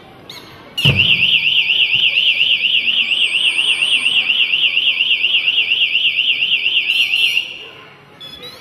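A loud warbling alarm-like tone, wavering up and down in pitch about five times a second, starting with a sharp knock about a second in and cutting out after roughly six and a half seconds.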